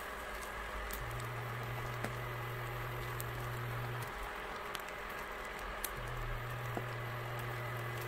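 Egg sizzling softly in a square nonstick rolled-omelette pan on an induction hob, with a low hum from the hob that cuts in and out every few seconds as it cycles its power. A few faint clicks come as cheese slices are laid in the pan.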